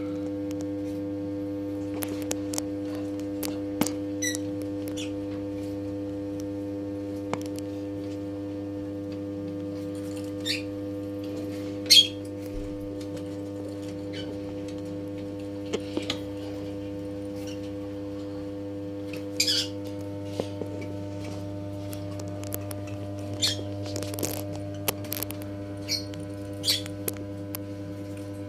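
Lovebirds giving short, scattered chirps and squawks, the loudest about twelve seconds in, over a steady electrical hum.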